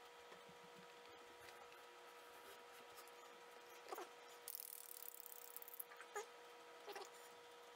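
Near silence: room tone with a faint steady hum, a few faint short squeaky chirps from about halfway on, and light rustling in the middle.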